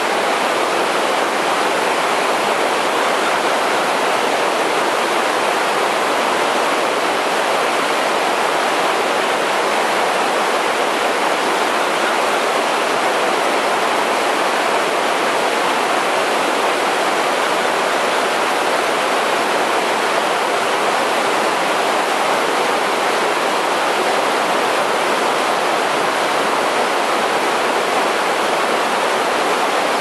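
A small waterfall: river water pouring over a low rock ledge and churning in white water below, a loud, steady rush.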